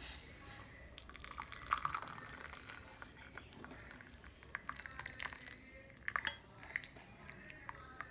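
Metal pan and strainer clinking and scraping as the hot kadha is strained, with some liquid trickling. The clinks come scattered, the sharpest about two seconds in and again around six seconds in.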